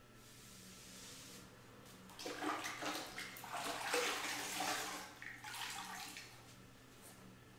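Sponge being rinsed and squeezed out in a bucket of water: irregular splashing and trickling, starting about two seconds in and stopping about two seconds before the end.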